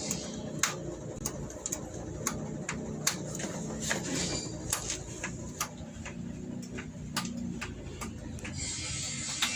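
Hand priming pump on a diesel injection pump being worked to bleed air from the fuel system, giving sharp clicks about twice a second, unevenly spaced, over a steady low hum.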